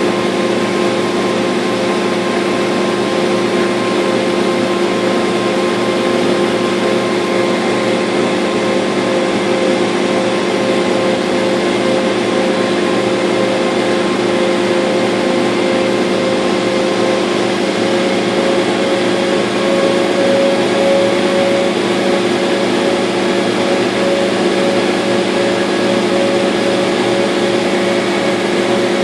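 Laser cutter running while its head cuts half-inch birch: a steady mechanical whir with a few held humming tones, one of the higher ones fading out about halfway through.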